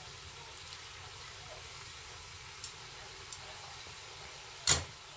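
A single sharp knock near the end over a faint steady hiss, with two light clicks before it.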